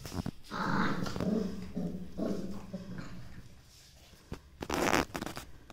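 Young Kombai puppies growling as they play-fight, in uneven pitched growls over the first few seconds. A short burst of noise follows near the end.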